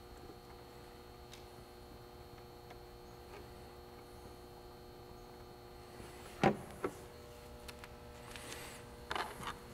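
Faint steady electrical hum, with a sharp click about six and a half seconds in and a few smaller clicks near the end. The clicks come from washers and nylon lock nuts being handled on the bolts inside a hard plastic sonar pod.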